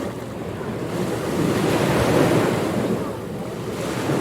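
Ocean waves washing in, a steady rush that swells to its loudest about halfway through and then eases off.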